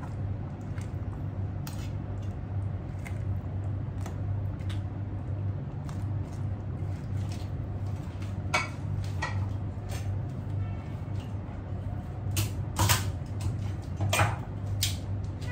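Crabs in coconut cream simmering in a frying pan on a gas stove: scattered pops and clicks, more of them in the second half, over a steady low hum.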